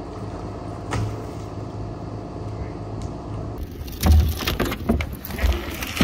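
Truck engine running steadily at idle, with a knock about a second in and a run of loud thumps and knocks over the last two seconds or so.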